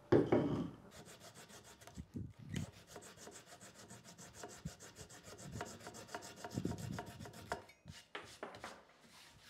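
Flush-cut saw trimming the protruding wedged tenons of the stool's softwood legs level with the seat top: fast, even strokes of the saw through the wood.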